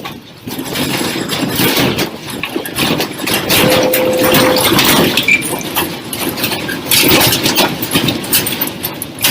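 A room shaking in a strong earthquake: a loud, continuous rumble with dense rattling and clattering of objects, starting about half a second in. A short steady tone sounds briefly near the middle.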